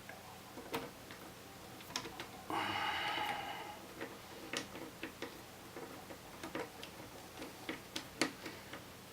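Small sharp clicks and ticks of a screwdriver driving in the spring-loaded screws that hold the CPU heatsink in an iMac, with a brief rasping burst about two and a half seconds in.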